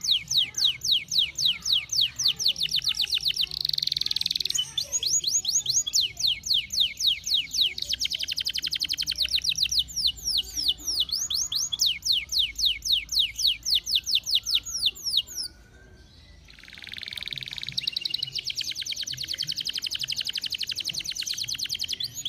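Domestic canary singing a long song of fast trills: rapid falling notes, about eight a second, run on in phrases. There is a break of about a second roughly two-thirds through, and then the song resumes in a denser, buzzier roll.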